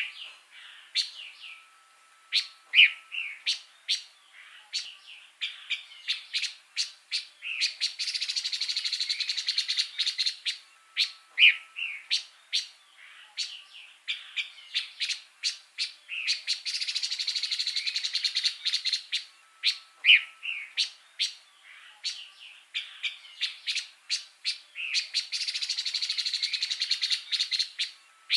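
Pancawarna songbird singing: sharp, separate high chirps, then a long, fast, rattling trill. The same phrase comes round again about every eight and a half seconds, as in a looped master song recording.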